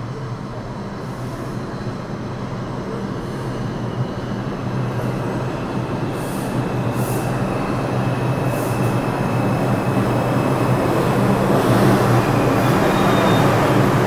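R142 subway train pulling into an underground station, growing steadily louder as it comes in and runs alongside the platform. A thin high squeal sets in about halfway through.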